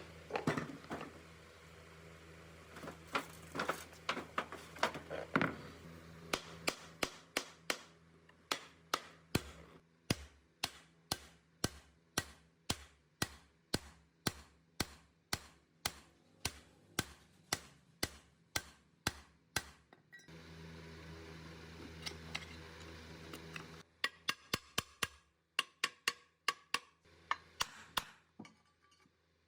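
Hammer striking metal in a steady rhythm of about two blows a second, with a quicker run of lighter taps near the end.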